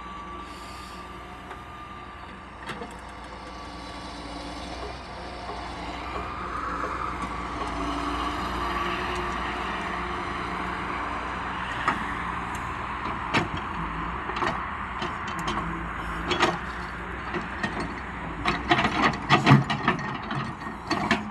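Heavy earth-moving machine's engine running, growing louder a few seconds in, with scattered knocks and clanks that come thicker near the end.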